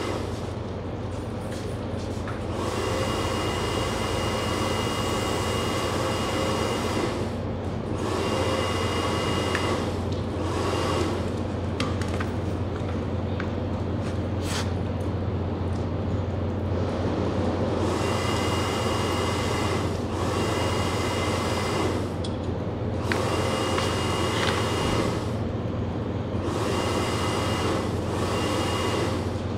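A machine with an electric motor running steadily: a strong low hum under a rushing noise, with a faint high whine that comes and goes several times.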